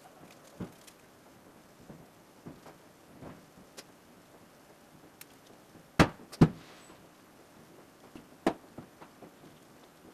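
Light taps and handling noises of a small paper model on a plastic cutting mat. Two sharp knocks come close together about six seconds in, and another about eight and a half seconds in.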